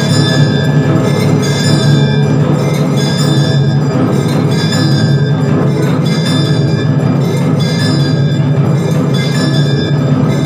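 Temple aarti music: bells struck again and again in a steady rhythm, with percussion over a continuous low hum.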